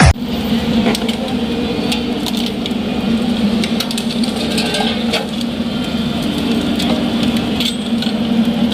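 Road roller's engine running steadily while it crushes seized motorcycle silencers, with irregular cracks and crunches of metal giving way under the roller.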